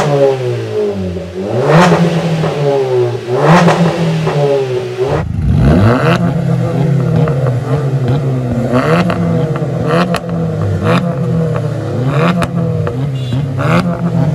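Car engine revved hard through a loud modified exhaust: about three quick revs rising and falling in the first five seconds, then a continuous run of revs with sharp cracks between them.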